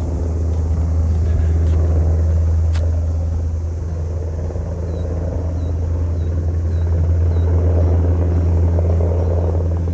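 Military helicopter hovering, its rotor making a steady low rumble.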